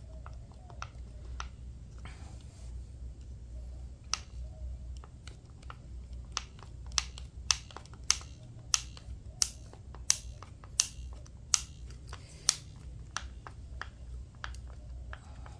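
A hand screwdriver turning a wood screw into a pine board. It gives scattered faint clicks at first, then a run of about ten sharp clicks, one every two-thirds of a second or so, slowing slightly as the screw tightens.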